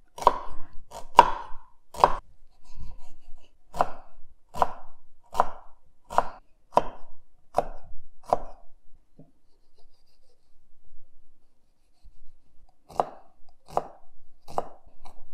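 Chef's knife chopping onion and garlic on a wooden cutting board: separate sharp knocks a little under a second apart, stopping for a few seconds after the middle, then three more.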